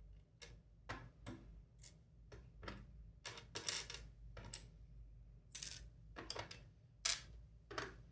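Small metal discs and spacers from an Anchor Lås disc-detainer padlock core clicking and clinking as they are taken out one by one and set down: about a dozen light, irregular clicks.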